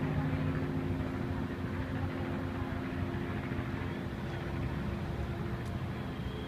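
Steady low engine drone, several steady humming tones over a rumble of noise, with no break.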